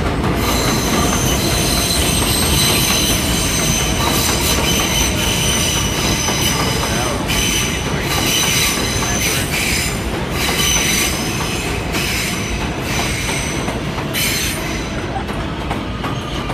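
R160B subway train with Siemens propulsion running along the tracks, its steel wheels squealing on the rails in steady high tones over the noise of the cars. The sound eases slightly near the end as the last cars pass.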